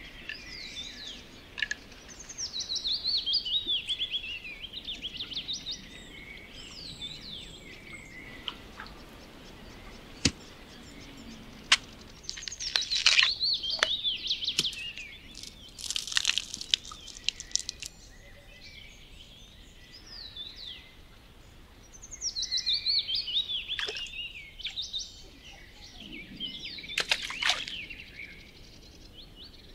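A songbird singing in several bursts of quick, warbling high phrases. Two sharp clicks come midway, about a second and a half apart.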